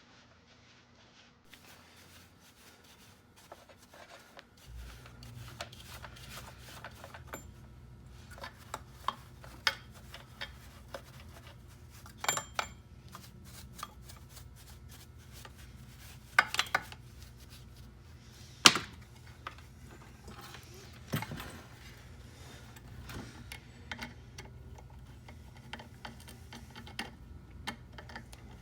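Small metal tools and parts being handled at a workbench: scattered clicks, taps and clanks, one sharp knock standing out about two-thirds of the way through. Under them a low steady hum starts about five seconds in.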